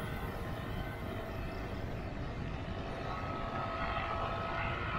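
Wind rushing and buffeting over the microphone of a camera riding along on a moving bicycle, a steady low rumble.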